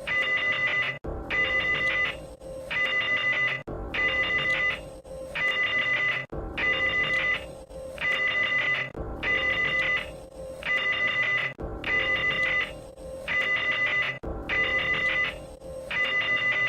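Electronic emergency alert tone sounding in a telephone-ring-like cadence: pairs of short high beeps, the pair repeating about every two and a half seconds, over a steady low hum.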